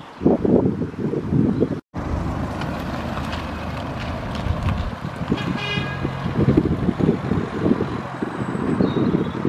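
A short horn toot about five and a half seconds in, over the steady hum of a vehicle engine running. Wind gusts buffet the microphone, and the sound drops out for a moment just before two seconds in.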